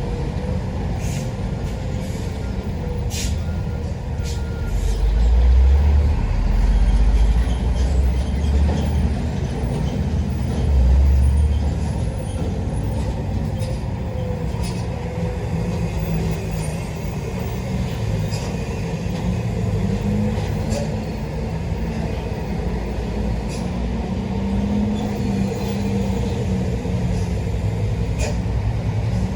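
Heavy diesel buses and trucks running on a steep uphill road. The engines hold a steady drone, and a deep rumble swells up twice as a heavy vehicle works close by, about five and ten seconds in.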